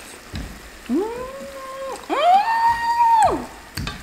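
A woman's voice giving two long wordless notes, each sliding up and then holding; the second is higher and louder and falls away at its end.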